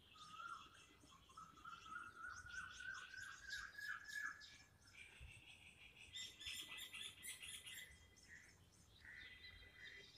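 Faint birdsong: a run of quick repeated chirps, then higher chirping about six seconds in.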